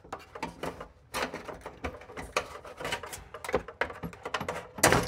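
Putty knife scoring the sealant under the front rim of an old stainless-steel drop-in sink to cut it free of the countertop: a steady run of small scrapes and clicks, with one louder knock near the end.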